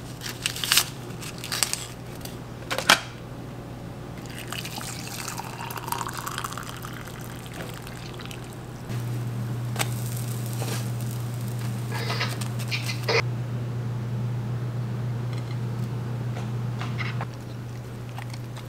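Kitchen handling sounds: a few sharp clicks and crinkles as a small packet is torn open over a coffee mug, then liquid pouring for a few seconds. After that a steady low hum runs under pancakes cooking in a frying pan, with a few clicks and scrapes of a spatula.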